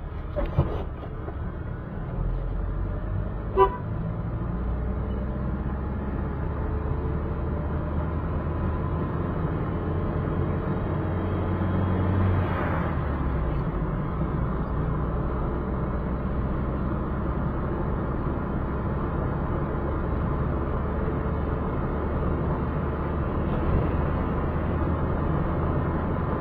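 A car driving on a road, its engine and road noise a steady low drone, with one short horn toot about three and a half seconds in.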